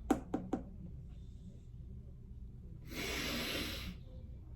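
A few sharp clicks in the first half-second, then a person's long, breathy inhale lasting about a second, from about three seconds in.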